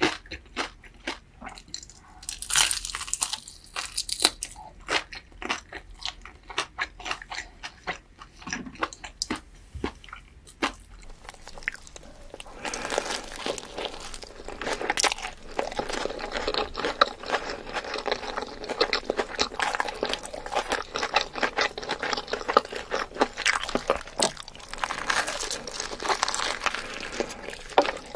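Crunchy food being bitten and chewed close to the microphone: separate sharp crunches for about the first twelve seconds, then a denser, continuous crackling crunch.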